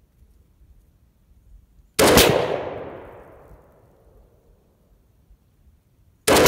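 Two rifle shots from an AR-pattern rifle chambered in 7.62x39, about four seconds apart. The first comes about two seconds in and the second near the end, each followed by an echo that dies away over a second or two.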